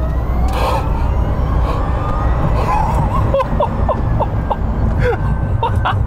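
Rimac Nevera's four electric drive motors whining under full-throttle acceleration, heard from the cabin: several pitches rise together as speed builds, over a steady low road and tyre rumble. The whine gives a spaceship-type sound.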